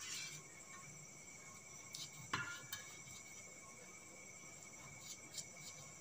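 Quiet room tone: a faint, steady high-pitched drone, with a few soft taps a little over two seconds in.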